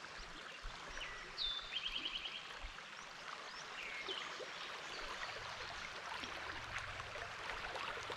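River water running over shallow riffles, a steady hiss. About a second and a half in, a bird sings a high slurred note followed by a quick trill of about eight notes, with a few short chirps later.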